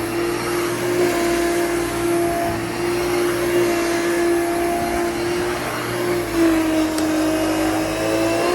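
Hoover Dimension 1000 canister vacuum running with its power nozzle, a steady motor whine with air rush. Its pitch dips slightly about six seconds in.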